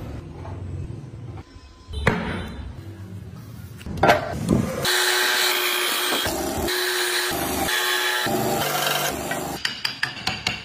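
Bandsaw cutting through a thick block of wood, loud and steady for about four seconds in the middle. A couple of knocks come before it, and near the end there is a quick, even run of taps, about three a second.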